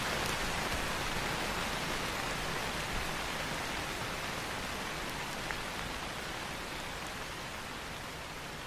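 Steady rain hiss with two or three faint crackles of a wood fire, the whole slowly getting quieter.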